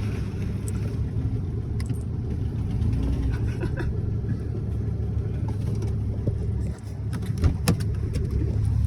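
A vehicle engine running steadily with a low rumble, with a few sharp knocks about seven to eight seconds in.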